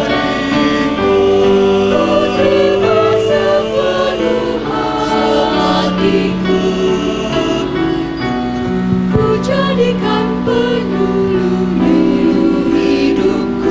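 Choral music: voices singing slow, long held notes in chords that change every second or two.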